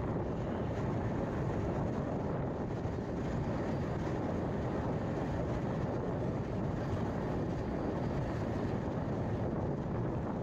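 Steady rumble and rush of an express train running along the line, heard from on board.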